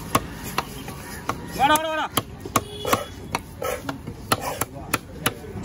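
Heavy cleaver chopping trevally on a wooden log block: a series of sharp chops, about two a second.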